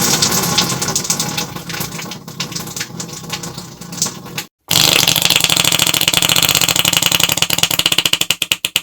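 Two fart sounds: a long, rough sputtering one lasting about four and a half seconds, then after a brief gap a faster, evenly fluttering one that breaks up into short separate puffs near the end.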